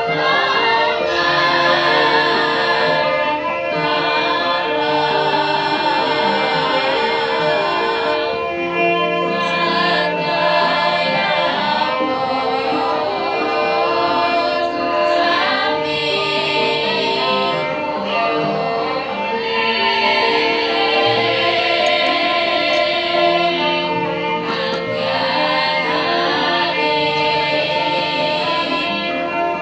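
Javanese gamelan ensemble playing a steady, repeating pattern of metallophone notes, with voices singing over it.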